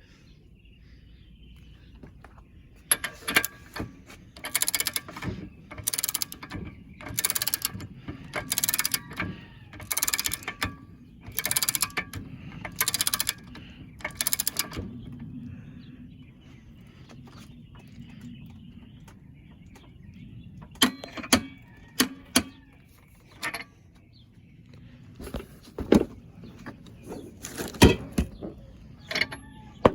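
A run of about eight short bursts of metallic ratcheting and clicking, roughly one a second, as a bolt is worked with wrenches. After a pause come scattered sharp clicks and knocks of steel tools.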